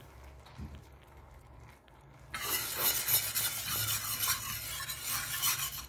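Metal wire whisk stirring briskly through a thin yogurt sauce in a metal pan, the wires scraping on the pan. It starts suddenly about two seconds in and goes on steadily.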